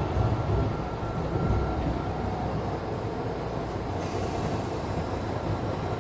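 Engine and road rumble heard from inside a Mercedes-Benz Citaro C2 G articulated bus as it slows and pulls up at a bus stop. The sound is steady and low, and eases a little over the first couple of seconds.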